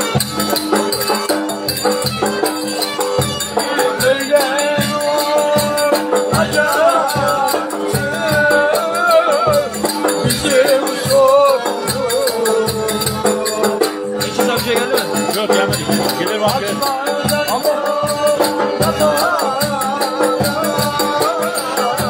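Turkish folk dance music: a large davul bass drum beats a steady dance rhythm under a wavering, ornamented melody.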